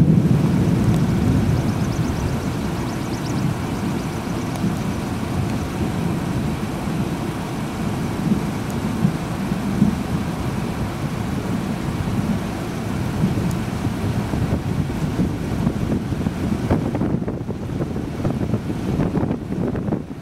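Wind buffeting the camera microphone: a steady, low, gusting noise with no distinct events.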